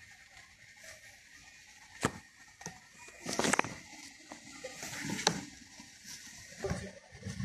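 Quiet outdoor background with a few sharp clicks and knocks: one about two seconds in, a louder cluster about three and a half seconds in, and another about five seconds in.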